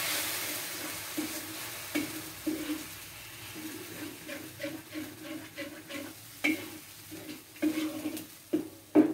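A metal ladle scrapes round a black wok, stirring blended spice paste and belacan shrimp paste as they fry in oil. The sizzle is loudest at first and dies down over the first few seconds, under steady repeated scraping strokes. Near the end come a few sharp knocks of the ladle against the wok.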